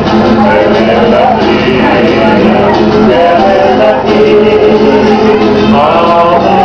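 A group of men and women singing together, loud and continuous.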